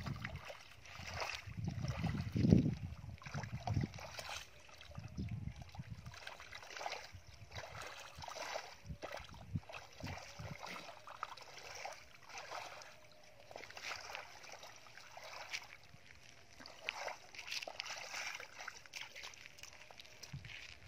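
Bare feet squelching and sloshing through wet mud and shallow muddy water, in irregular steps about once a second. There is a heavier low thud about two and a half seconds in.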